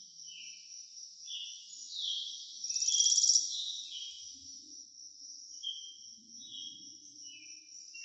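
Nature-ambience chirping: a steady high trill that pulses louder about three seconds in, with short falling chirp notes repeating throughout.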